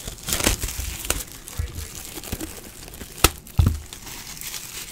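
Crinkling and tearing of the wrapping on a sealed Panini National Treasures baseball card box as it is opened and handled. Two sharp knocks come a little over three seconds in, as the box is set down on the table.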